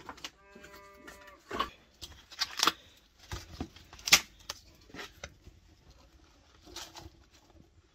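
Split firewood clacking and knocking as it is handled at a tandir clay oven, with the brushwood kindling fire inside crackling. The sharp knocks come irregularly, a few in the first half and fainter ones later.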